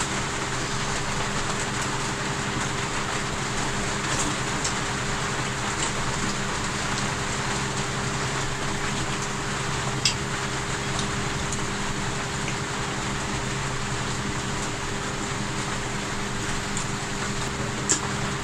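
Steady hiss of room noise with a constant low hum, and a sharp click about ten seconds in and another near the end.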